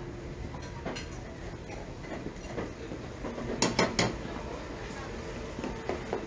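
Market street din with scattered small clicks, and a quick run of three sharp clinks of hard objects, like dishes or metalware knocking together, about three and a half seconds in.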